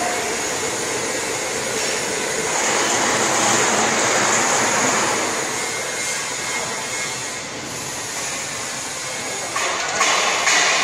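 Pneumatic vacuum feeder running steadily, its blower drawing air through the suction hose with a high hiss. Two sharper, louder rushes of air come near the end.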